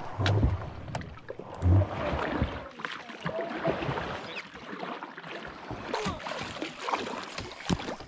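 River water lapping and gurgling against a canoe's hull, with scattered light knocks. Wind hits the microphone in two gusts in the first two seconds.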